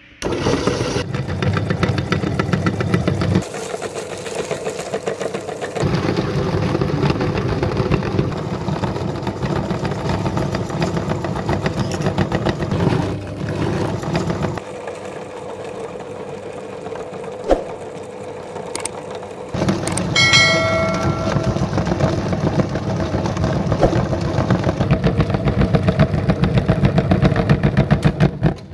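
An electric meat grinder switched on and running, mincing whole fish. The motor starts abruptly and runs under load with a dense grinding sound.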